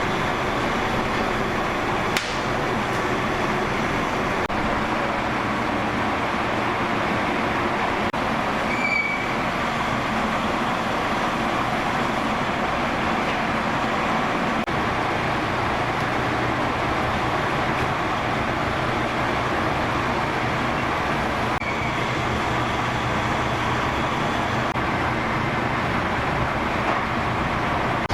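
Steady mechanical running noise with a low hum, and a short high squeak about nine seconds in.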